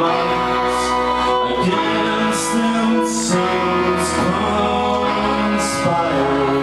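Live band music: a violin bowing held notes over electric bass guitar, the chords changing every second or two.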